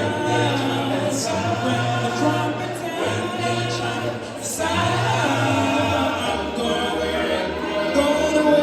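A choir singing a gospel song, with held notes over a steady low bass part.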